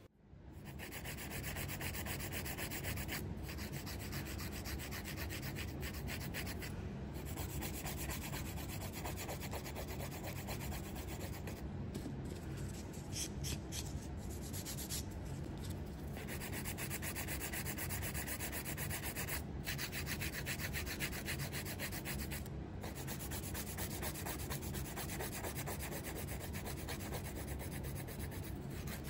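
Hand nail file rubbed rapidly back and forth across a natural fingernail, a steady fine scratching rasp of many quick short strokes, as the nail is shaped in preparation for gel nails.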